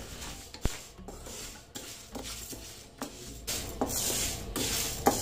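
Wooden spatula stirring dry split moong dal in a nonstick frying pan as it dry-roasts without oil: soft scraping and rustling of the lentils against the pan in repeated strokes, with a few light clicks, getting louder after about halfway.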